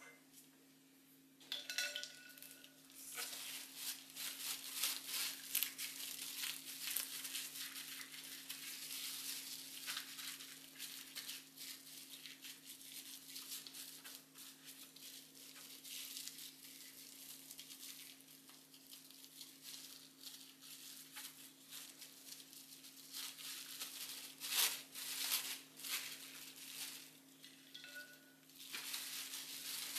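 Plastic cling wrap crinkling and rustling in irregular flurries as gloved hands gather it around a ball of fish paste, twist it and press it into shape, with the loudest burst of crinkling near the end. A steady low hum runs underneath.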